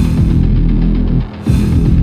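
Loud background music with a heavy low beat, the sound briefly dropping away about a second in before coming back.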